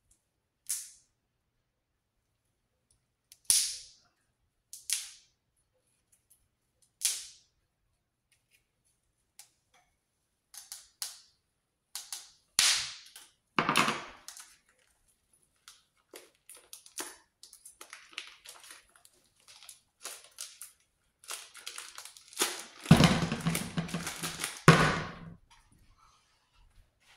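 Knife slitting the plastic wrapper of a frozen chub of ground beef in sharp, separate snips, then the plastic crinkling as it is torn and peeled away. Near the end comes the loudest stretch: a louder crinkle and knock as the frozen log of meat goes into the frying pan.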